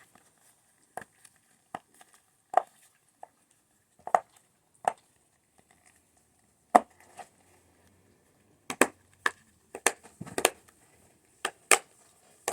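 Silicone push-bubbles of a Simple Dimple fidget toy being pressed down, popping crisply: a dozen or more single pops at irregular intervals, some in quick pairs.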